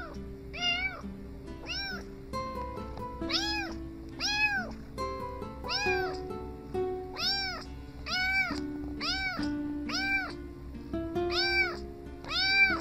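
A cat meowing over and over: short, high meows, each rising and then falling in pitch, coming about every second. Background music with sustained notes plays underneath.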